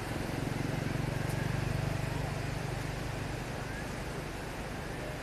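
A low engine hum from an unseen motor, swelling over the first couple of seconds and then slowly fading, over a steady background hiss.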